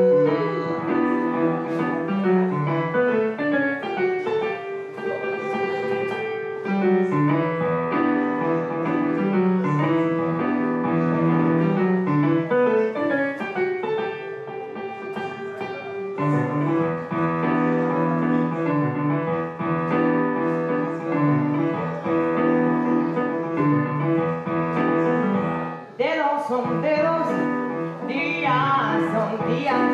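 Casio digital keyboard playing piano chords in a solo interlude of a song. A woman's held sung note fades at the start, and her singing comes back in near the end.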